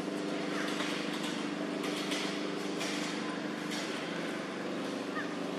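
An engine running steadily, with occasional short crackles.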